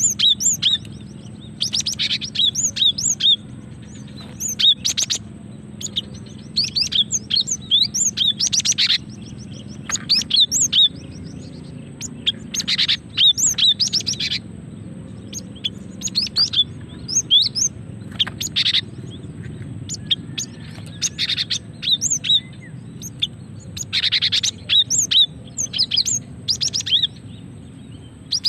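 Female cinereous tit (gelatik batu) calling to males: short bursts of rapid, high chirps, repeated every second or two.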